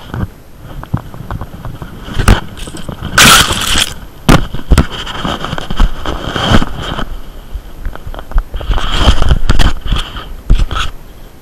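Close rustling and scraping with scattered sharp knocks and clicks, loudest in two longer bursts about three seconds in and again around nine seconds.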